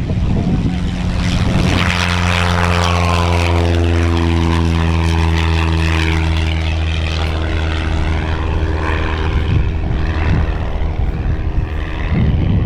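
Light propeller-driven aircraft's piston engine at high power for take-off: a steady droning engine-and-propeller note, which stops shortly before the end.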